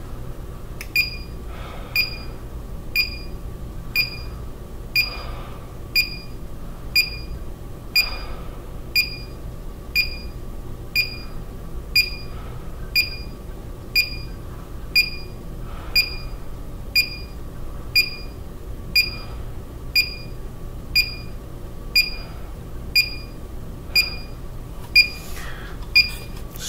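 Carbon dioxide monitor's alarm beeping once a second, a short high beep each time, set off by carbon dioxide readings in the thousands of parts per million from breath trapped inside a face mask. Faint breaths through the mask come every few seconds under the beeps.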